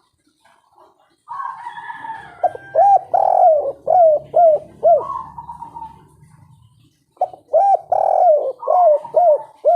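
Spotted dove (tekukur) cooing in the 'kuk 3' song style: two song phrases, each a run of short, quick coos with a longer drawn note between them.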